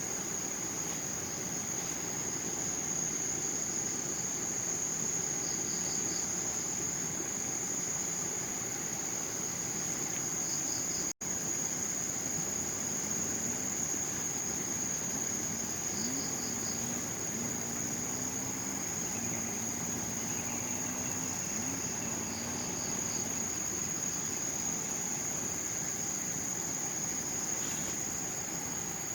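A steady, high-pitched insect drone, with a short trilled call repeating every five or six seconds. The sound cuts out for an instant about eleven seconds in.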